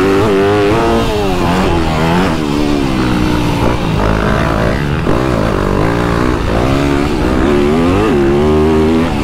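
Motocross bike engine revving up and down as it is ridden, its pitch rising and falling repeatedly with the throttle and gear changes.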